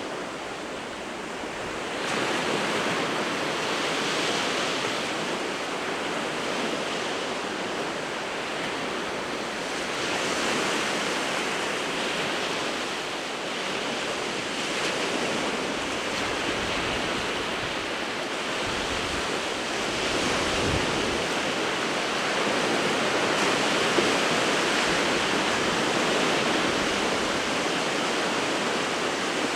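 Winter Sea of Japan surf: waves breaking and washing on the shore in a continuous rushing roar that swells and eases every few seconds, with some wind.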